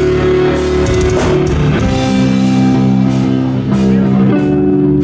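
Live rock band playing: electric guitars hold notes that change every second or so over drums and cymbals.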